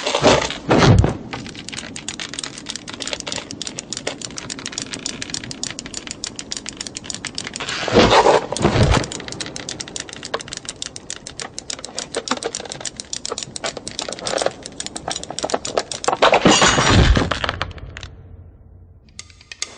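Knitting needles clicking in a rapid, even, sped-up rhythm, many clicks a second. Three louder rushing swells with a low thump break in, at the start, about eight seconds in and near the end. The clicking stops shortly before the end.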